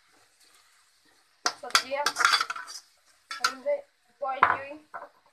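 Slotted metal spatula scraping and clanking against a metal kadhai while stir-frying vegetables. Quiet for about the first second and a half, then several short bouts of clatter.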